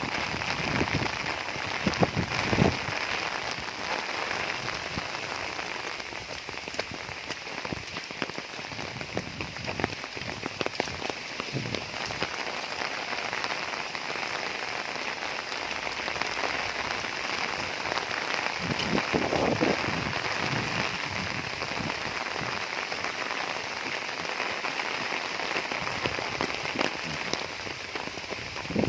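Heavy rain falling steadily on a roof, with a few louder low swells near the start and about two-thirds of the way through.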